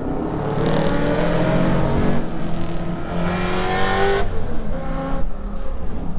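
Holden Commodore's 308 V8 accelerating hard under load, heard from inside the cabin. Its pitch climbs steadily for about four seconds, drops at an upshift, climbs briefly again, then falls away about five seconds in as the driver lifts off.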